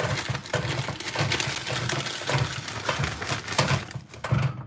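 Rustling and light clinking from kitchen handling, with many small knocks, as brown sugar is added by hand to a bowl of ketchup-and-vinegar sauce.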